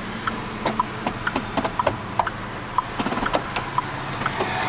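Hazard flasher ticking steadily, about twice a second, over the low, steady hum of the 2006 Chevrolet Colorado's idling Vortec 2800 engine. A few sharper knocks come in the middle.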